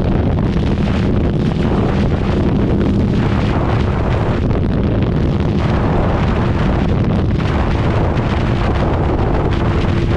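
Heavy wind buffeting the microphone while riding a Harley-Davidson V-Rod at steady road speed, with the drone of its liquid-cooled V-twin engine running steadily underneath.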